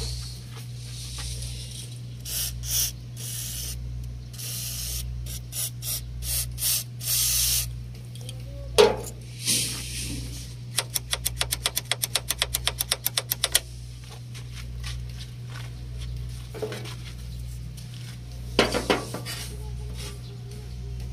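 WD-40 aerosol can sprayed in several short hissing bursts onto a rusted, sticking grille-lock latch to loosen the rust. Partway through there is a sharp snap, then a fast, even run of clicks, about seven a second for a few seconds, with a steady low hum underneath.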